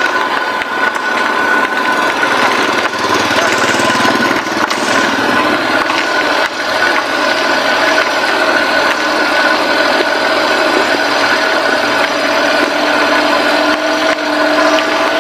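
Kei truck driving slowly on a dirt road, heard from a camera mounted low beside its front wheel: a steady engine hum and whine over loud tyre and gravel noise, with small knocks and rattles throughout. A brief swell of hiss comes about four seconds in.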